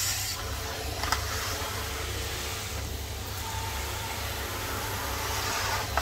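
Numatic Henry HVR200 620 W tub vacuum cleaner running steadily, a low motor hum under the hiss of air rushing through the hose. One brief knock about a second in.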